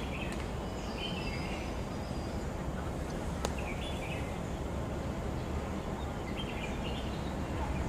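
Steady low outdoor background noise at a football pitch, with a few faint, short, high-pitched calls now and then and one sharp click about three and a half seconds in.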